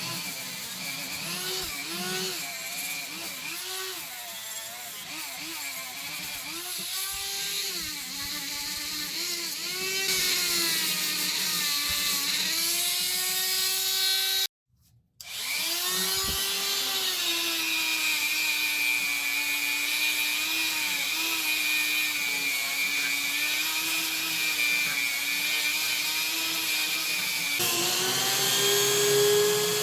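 Small electric power tool motor whining as it works on metal, its pitch dipping and recovering again and again as it is pressed against the work and eased off. There is a brief break about halfway, and the pitch rises to a higher steady speed near the end.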